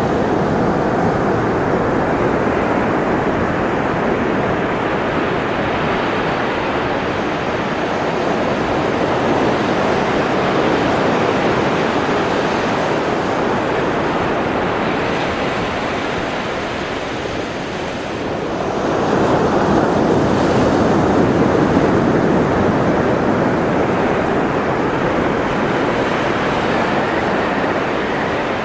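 Ocean surf washing steadily; it eases off briefly about two-thirds of the way through, then a wave swells back up.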